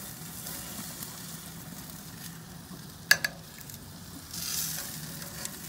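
Chicken breasts sizzling on hot gas-grill grates as they are lifted off with metal tongs, with two sharp clacks of the tongs in quick succession a little past halfway. The sizzling hiss grows louder near the end.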